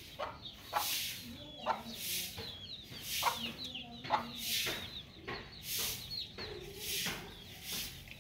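Chickens: chicks peeping in short high chirps, with a hen clucking low now and then. Under them a hissing noise swells and fades about twice a second.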